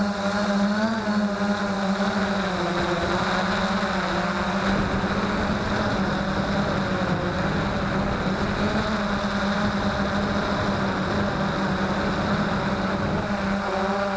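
Freex Skyview quadcopter's electric motors and propellers humming steadily in flight, heard through the onboard action camera's microphone with a rushing airflow noise. Faint music is beneath it for the first couple of seconds and again near the end.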